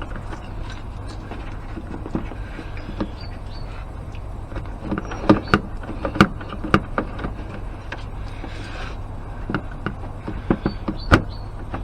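Scattered sharp clicks and knocks of plastic parts being handled as a headlamp washer pump is pushed into its rubber grommet in the washer fluid bottle, with a brief rustle about two-thirds of the way through, over a steady low hum.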